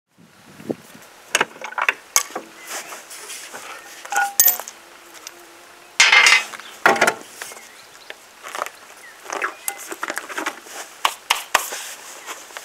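Metal clinks and clicks of wheel bolts being unscrewed and handled as a car's road wheel is taken off, with a louder scrape about six seconds in.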